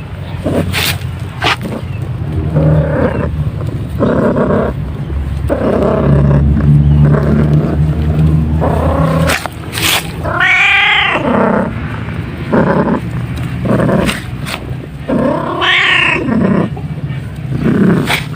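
Domestic cat purring very loudly while its head is scratched, the purr coming in repeated bursts with short breaks between breaths. Twice the cat gives a drawn-out meow that rises and falls in pitch, about ten seconds in and again near the end.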